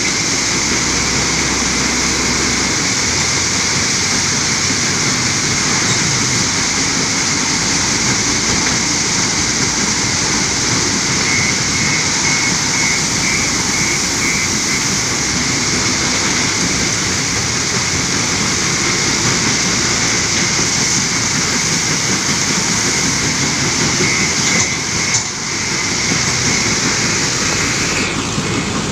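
Steady, loud heavy-machinery noise: a stone crusher plant and its conveyors running, with a JCB 530-70 telehandler's diesel engine working as it loads crushed stone into a dump truck. Short runs of rapid high beeping come in a few times.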